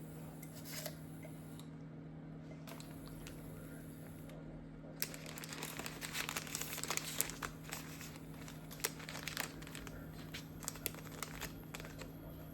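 Crinkling and crackling of something being handled, starting about five seconds in, over a steady low hum.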